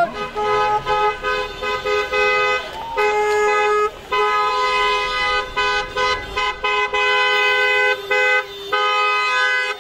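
Car horns sounding in long, held blasts with short breaks between them, two horn notes sounding together; celebratory honking from a procession of cars.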